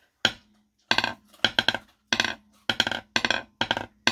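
Wooden craft sticks bounced on a wooden tabletop with alternating hands: clusters of two or three quick taps, each stroke bouncing, coming a little faster towards the end. It is the double-stroke bounce practised for a drum roll.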